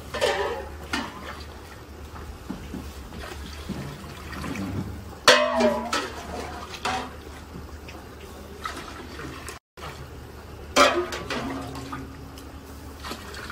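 Water being poured and splashing into a large cooking pot.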